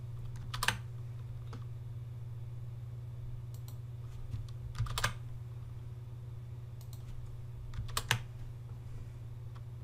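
Computer keyboard keystrokes in three short clusters of two or three clicks each, about a second in, around five seconds and around eight seconds, as line breaks are typed into an email's text. A steady low hum sits under them throughout.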